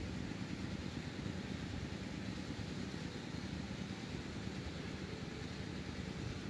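Steady low rushing of a shallow stream flowing over rocks.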